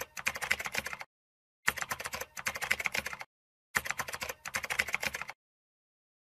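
Computer keyboard typing in three quick bursts of rapid key clicks, each about a second and a half long, with short pauses between.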